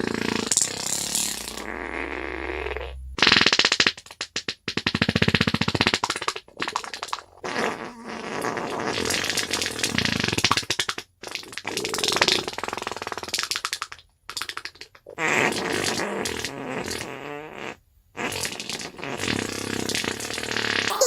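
A string of fart sound effects, one after another, each from under a second to a few seconds long, with short silences between them.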